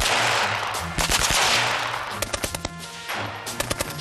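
1916 Vickers water-cooled .303 machine gun firing in short bursts, the shots coming in quick clusters.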